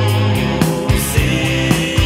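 Rock band music: a drum kit, bass and electric guitars playing.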